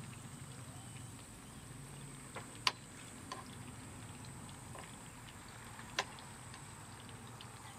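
Vegetable slices frying in oil in a pan, a faint sizzle with scattered small crackles. Metal tongs click sharply against the pan twice, near three seconds in and again about six seconds in.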